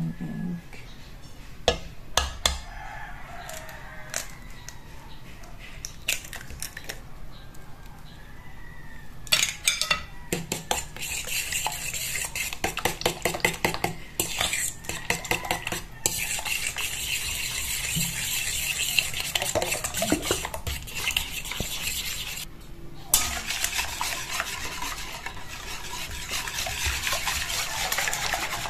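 A few sharp knocks early on as an egg is cracked on a stainless steel mixing bowl. From about ten seconds in comes a fast, continuous clatter of a fork beating the batter against the metal bowl, with a brief pause a few seconds before the end.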